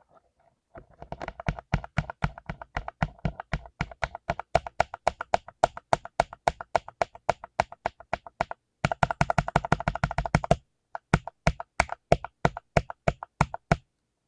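Typing on a full-size mechanical keyboard with lubed blue (clicky) switches: fast, sharp key clicks several a second, a quick flurry of keystrokes a little past halfway, a brief stop, then steadier typing again.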